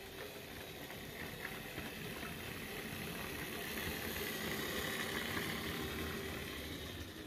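O gauge model train running along its track, the wheels and motor rumbling and rattling; it grows louder toward the middle and fades near the end as the train passes.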